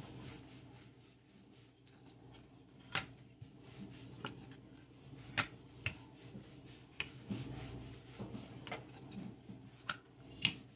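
Wooden rolling pin rolling out paratha dough on a wooden board: soft rubbing, broken by a scatter of sharp clicks.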